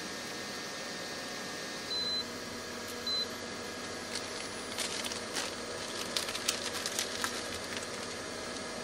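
Portable induction cooktop beeping twice as it is switched on and its power set, followed by a scatter of light clicks and ticks, over a steady hiss.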